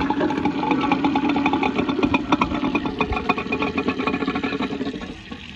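3/4-horsepower garbage disposal running with chunks of ice rattling and knocking around in its grinding chamber, the blades not yet grabbing the ice. It quietens near the end.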